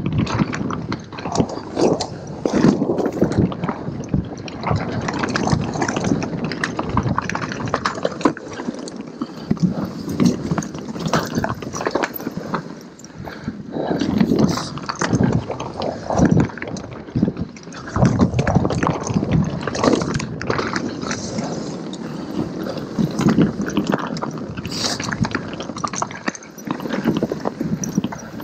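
Mountain bike rolling fast down a rough dirt and rock singletrack: tyres crunching over loose stones and roots, with the bike rattling and clattering in a dense run of irregular knocks.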